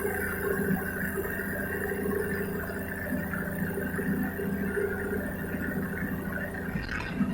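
Paramotor engine running steadily, a continuous drone.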